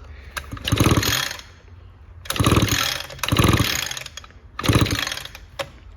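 Recoil pull-starter of an Echo SRM string trimmer being pulled about four times, its rope and pawls giving a quick ratcheting rasp each pull, spinning the engine for a spark test on a grounded NGK spark plug without the engine firing.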